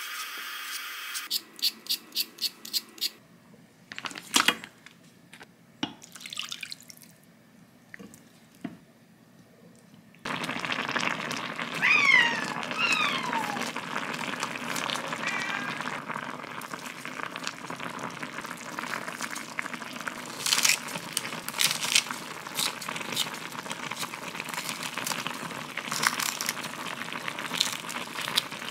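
A vegetable peeler scraping a potato in quick strokes, about four a second. Then a pot of soy-braised chicken (jjimdak) with potatoes simmers with a steady hiss, while kitchen scissors snip through the meat and fresh green onions and chillies.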